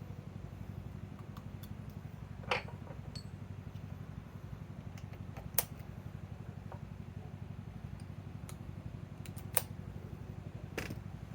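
Steady low background hum, with a few scattered sharp clicks and taps from handling tools and parts.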